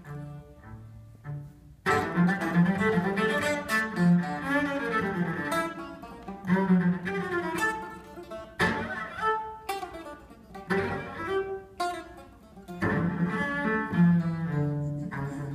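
Cello and Greek bouzouki playing a Turkish saz semai together, the cello bowed under the bouzouki's picked notes. The first two seconds are soft, low cello notes; then both instruments come in loudly with quick runs of notes.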